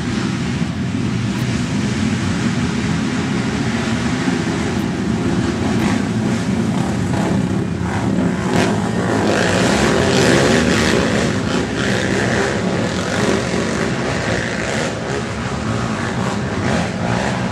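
A pack of racing quad ATVs running past, several engines at once, the engine noise swelling to its loudest about halfway through as the quads go by close.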